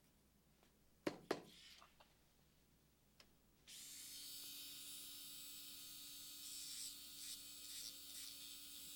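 Two sharp clicks about a second in, then a dental handpiece starts and runs steadily with a hiss and a low hum, spinning a fine sand disc lightly against a cast gold crown to take the shine off the metal.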